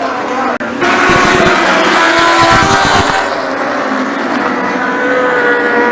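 Lightning sprint cars racing, several engines running hard at high revs together. There is a brief dropout about half a second in.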